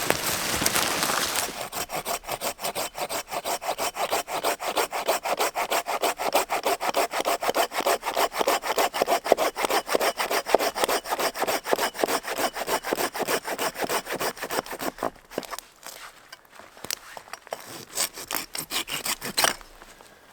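Hand saw cutting through wood in fast, even back-and-forth strokes, about four a second. It pauses briefly around fifteen seconds in, saws a few more strokes, then stops. A louder rustling noise fills the first second or so.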